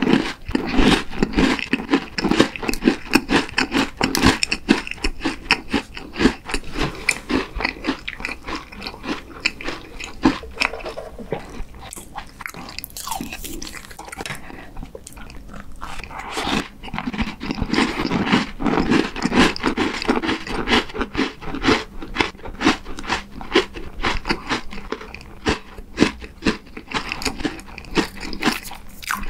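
Close-up chewing and crunching of a crisp cookie, a dense run of crackly bites. About halfway through it quietens briefly, then chewing resumes with a piece of cream cake on a cookie base.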